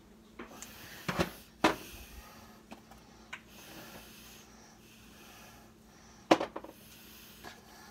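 Plastic spice shakers being shaken over a plastic mixing bowl: soft patches of hiss from the shaking, with a few sharp clicks and knocks of the shakers being handled, the loudest about six seconds in.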